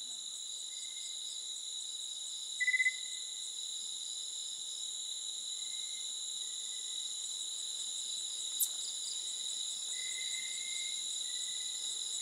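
Night insect chorus of crickets trilling steadily at a high pitch. About three seconds in comes a short, louder chirping call. Later there is one sharp brief tick.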